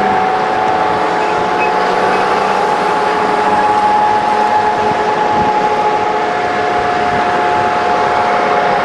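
Convoy of eight-wheeled armoured vehicles driving past: steady engine and tyre noise with a high, even whine over it.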